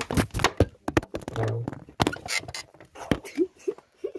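A phone camera being handled and carried: a string of knocks, clicks and rustles, with a few short squeaks near the end.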